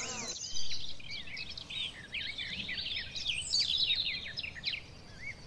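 Many small birds chirping and calling at once, a dense flock chorus of quick, high notes that sweep up and down and overlap. A short bump about half a second in.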